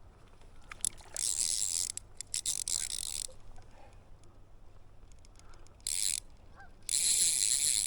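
Old click-pawl fly reel ratcheting: three runs of rapid clicking, the first about two seconds long, with a few slower single clicks between them.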